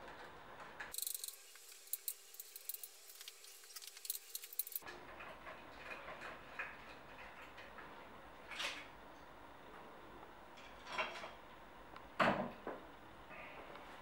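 Faint small metallic clicks and clinks as a hex-bit screwdriver turns out the small screws on a scooter's front-fork plastic cover. There is a dense run of quick clicks for a few seconds early on, then a few single taps later.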